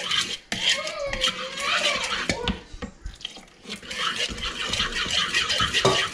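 A wooden spoon stirring pancake batter in a mixing bowl: quick, irregular scraping and knocking of the spoon against the bowl.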